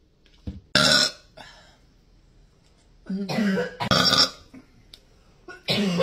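A woman burping loudly three times: a short burp about a second in, a longer, pitched burp from about three to four seconds in, and another near the end.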